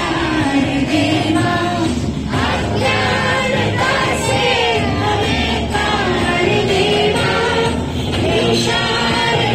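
A group of children and teenagers singing a prayer song together.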